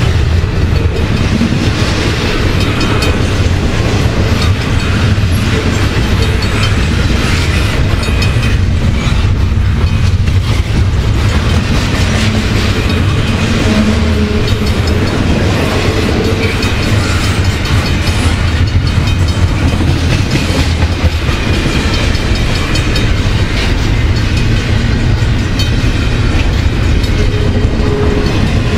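A long double-stack intermodal freight train's loaded container well cars rolling past close by. It makes a loud, steady rumble of steel wheels on rail, with clickety-clack from the wheels over the rail joints.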